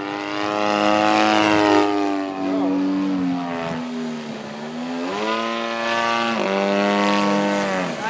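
Engine of a radio-controlled scale Wright Flyer model flying overhead, a steady buzz. Its pitch slowly falls about two seconds in, climbs again about five seconds in, then drops suddenly a second and a half later.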